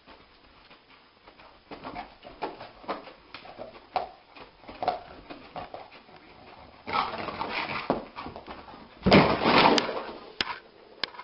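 A sleeping dog whimpering and yipping in a dream: a string of short, soft whimpers a few at a time. Near the end come louder scuffling and knocking noises as it scrambles up off the carpet.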